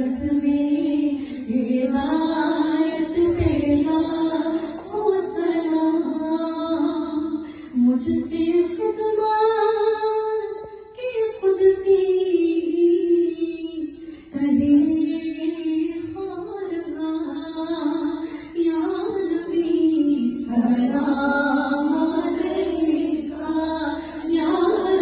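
A high female voice singing a naat, a flowing devotional melody with long held and bending notes.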